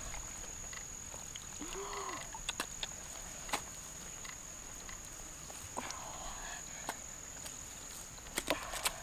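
Scattered soft clicks and rustles of hands searching through wet mud and grass stems, over a steady high whine.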